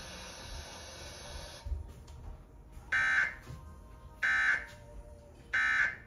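Emergency Alert System end-of-message data tones from a TV's speakers: three short bursts about a second and a quarter apart, the signal that closes the alert broadcast.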